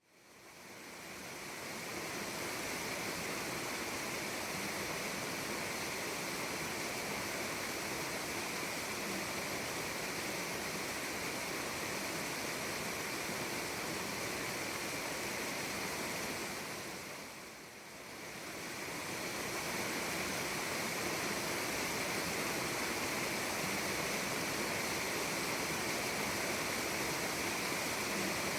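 Mountain stream rushing over rocks in a steady, even wash of water noise. It fades in over the first couple of seconds and dips briefly about two-thirds of the way through before coming back at the same level.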